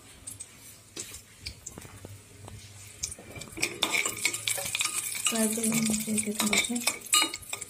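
A steel spoon stirs chopped nuts in a hot aluminium pot, clicking against the metal; about three and a half seconds in a liquid goes into the hot pot and sizzles loudly while the spoon keeps scraping and clinking against the pot.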